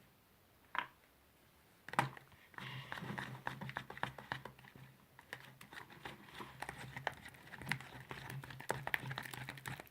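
Sticky slime being stirred and worked by hand in a bowl with its activator: after two single clicks, a dense run of small wet clicks and crackles sets in about two and a half seconds in.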